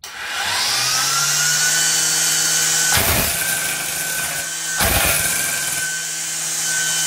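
Greenworks 40V battery string trimmer's motor and nylon line head spinning up with a rising whine, then running steadily. About three and about five seconds in, the spinning head is tapped on the floor, two sharp knocks that bump-feed fresh nylon line out of the head.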